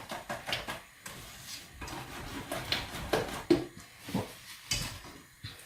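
Kitchen clatter: a string of irregular knocks and clinks of utensils and dishes being handled.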